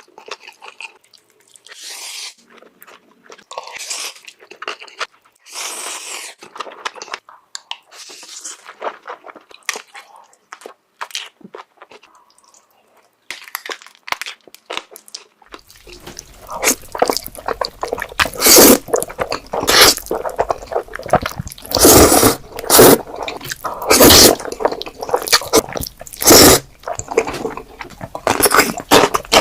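Close-miked eating of Korean black bean noodles (jjajangmyeon): wet chewing and mouth smacking, sparse and quieter at first, then much louder and denser from about halfway through.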